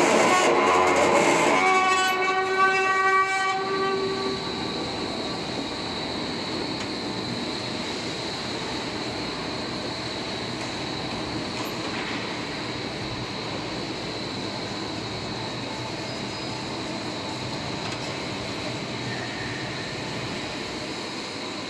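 Floor deck roll forming machine running with a steel deck sheet passing through its forming rollers: a steady mechanical running noise with a thin high whine. It is louder for the first two seconds, and a pitched squeal sounds briefly about two seconds in before the noise settles to a steady level.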